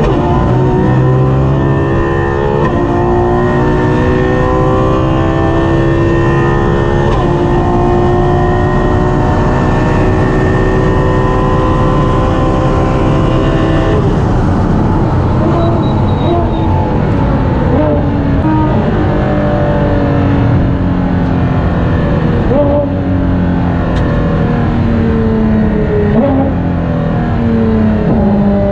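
Ferrari FXX K's V12 engine heard from inside the cockpit, running at high revs and upshifting through the upper gears into seventh. From about halfway the pitch falls as the car brakes and downshifts, with short throttle blips, down to second gear.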